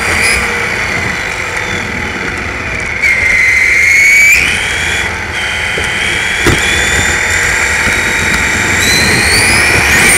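1/10-scale RC car's motor and drivetrain whining over tyre and road noise as it drives. The whine rises and falls in pitch with speed, climbing sharply about three to four seconds in and again near the end.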